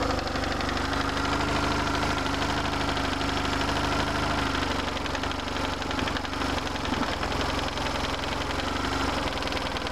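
BMW R1150RT's air/oil-cooled boxer twin idling steadily with a fast ticking, which is usually the sign of a worn throttle body shaft.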